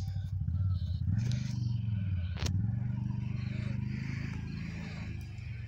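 Can-Am Outlander 650 ATV's V-twin engine running as it is ridden, a steady low drone, with a sharp click about two and a half seconds in.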